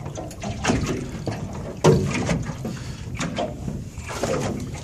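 Sea water splashing and slapping around a small boat, in irregular knocks and splashes with the loudest about two seconds in, over a steady low rumble.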